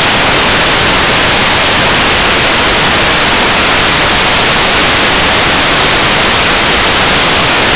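Loud, steady hiss of white-noise static from the analog FPV video receiver's audio channel on the goggle DVR recording.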